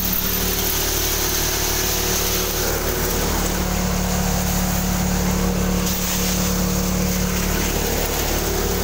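Tractor-driven thresher running steadily while threshing chickpeas: an even engine drone with the machine's noise over it.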